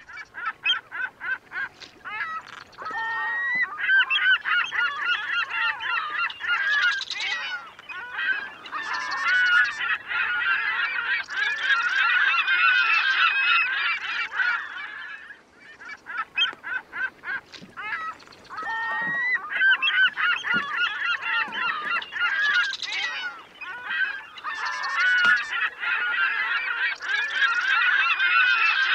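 A flock of birds calling in a dense, overlapping chorus of honking calls. It starts abruptly, and the same stretch of calls repeats about halfway through, like a looped sound effect.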